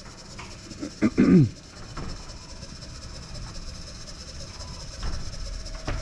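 Electric drive motor of a loading-dock sectional door running steadily, with a hum and high whine, as the door is driven down on its tracks on a hold-to-run down button; the rumble grows louder near the end as the door nears the floor.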